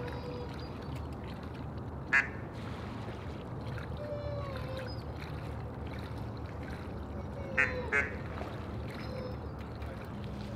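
Ducks calling: a loud, short, rapid quack about two seconds in and two more close together near eight seconds, with softer whistles and chattering calls from other ducks in between.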